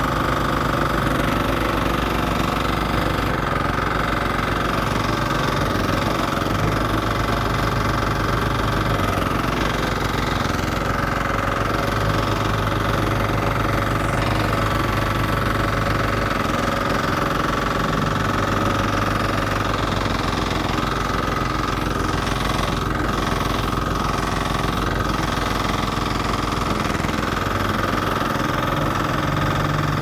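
Small engine of a walk-behind double-drum roller running steadily as the roller compacts a layer of soil.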